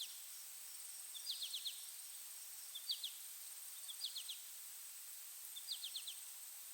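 A songbird repeating a short high song phrase over and over, about every second and a half: one brief note followed by three or four quick notes. A steady high-pitched whine sits underneath.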